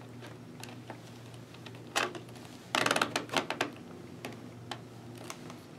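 Light clicks and taps of plastic as the Sena 10U external battery pack is pressed into place in the back of a Shoei GT-Air helmet's liner, with a quick cluster of clicks about two to three and a half seconds in.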